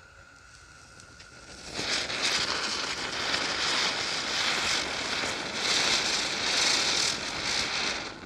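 Two small ground-spinner firecrackers (chakri) catching about two seconds in, then hissing and crackling steadily as they spin and throw sparks, dying down near the end.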